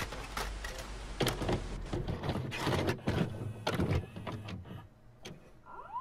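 VCR loading and starting a VHS cassette: a run of irregular mechanical clicks and clunks, then a short rising whine near the end.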